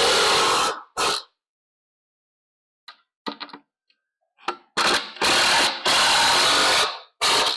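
Power drill driving drywall screws into wood in short bursts: a run of about a second at the start and a brief one just after, a few small clicks, then four more bursts in the second half.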